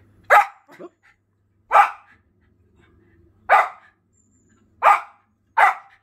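A Schipperke barking: five short barks, one at a time, spaced roughly one to two seconds apart.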